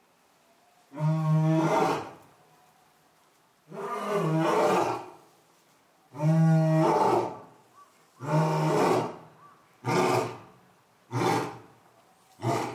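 A male lion roaring in a bout: about four long, deep roars, then a run of shorter grunting calls that come quicker and tail off toward the end.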